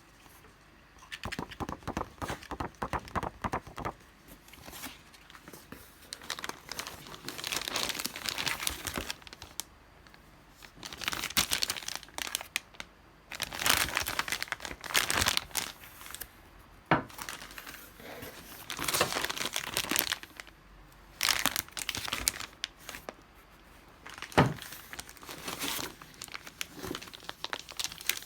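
Packaging being unwrapped: irregular bouts of crinkling and crumpling with some tearing, and one sharp knock about three quarters of the way through.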